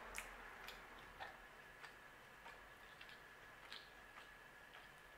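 Near silence, with faint short clicks about every half second or so and a faint steady high hum.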